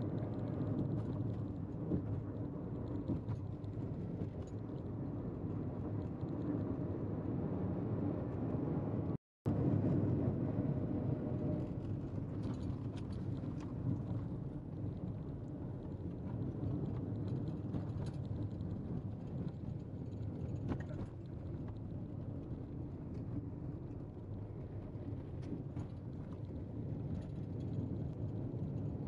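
Steady tyre and engine noise of a car driving on a new concrete road surface, heard from inside the cabin. The sound cuts out for a moment about nine seconds in.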